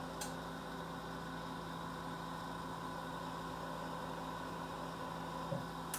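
Steady hiss of a lampworking bench torch burning, over an even electrical hum, with one light click just after the start.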